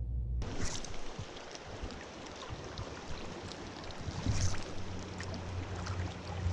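Flowing creek water rushing steadily. It starts abruptly about half a second in, with a few faint knocks over it.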